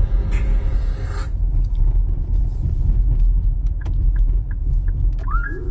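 Steady low rumble of a car driving in the rain, with scattered faint clicks over it.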